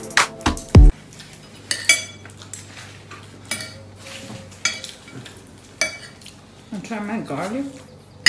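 Knife and fork clinking and scraping against a plate while eating, as scattered sharp clicks. Background music with a beat cuts off about a second in.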